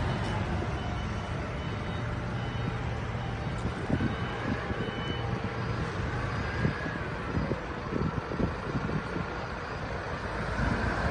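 Forklift engine running as the truck reverses up a ramp, its reversing alarm sounding in short repeated high beeps through roughly the first half.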